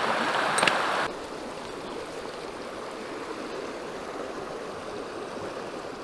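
Rushing river water flowing over rocks, a steady even rush. It is louder for about the first second, with a single light click, then drops to a quieter steady rush.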